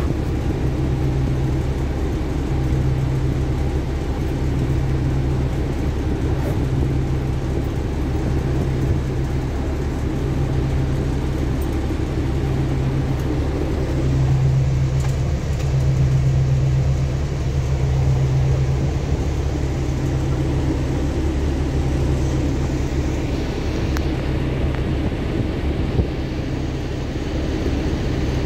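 Bus engine and road noise inside the passenger cabin: a steady low rumble with an engine hum that swells a little about halfway through. A couple of small clicks come near the end.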